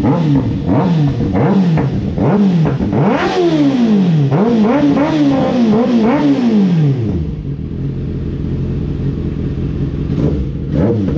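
2024 Kawasaki ZX-6R 636 inline-four revving through an M4 slip-on exhaust with the baffle fitted: a string of quick throttle blips, each rising and falling in pitch. About seven seconds in it drops back to idle, and the blips start again near the end.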